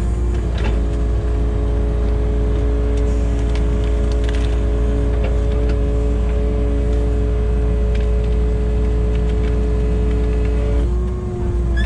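Kubota KX080 excavator's diesel engine running steadily under hydraulic load, with a deep rumble and a steady whine. Small knocks come through now and then, and the pitch of the whine changes near the end.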